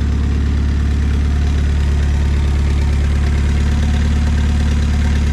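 Datsun 520 pickup's four-cylinder engine idling steadily, an even low running note with no change in speed.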